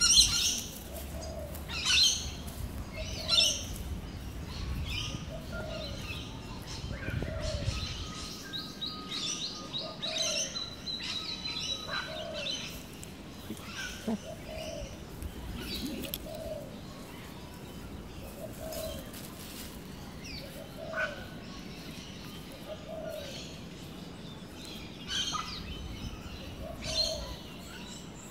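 Several birds chirping and calling, with one lower call repeating about every one and a half seconds. A low rumble runs under them for the first eight seconds or so.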